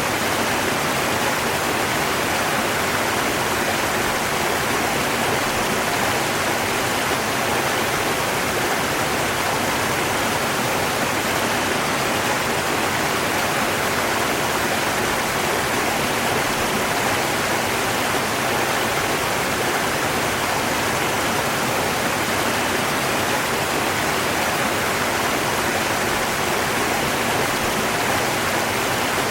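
River water rushing steadily, an even hiss with no breaks or changes.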